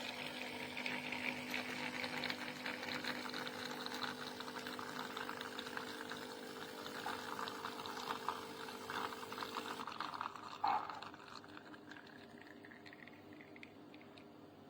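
Philips L'OR Barista Sublime capsule coffee machine brewing: its pump hums steadily while coffee pours into the cup, then stops about ten seconds in. A brief knock follows.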